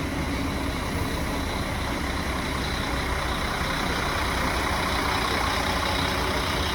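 Engine of an erixx train running with a steady drone and rumble, getting a little louder about halfway through.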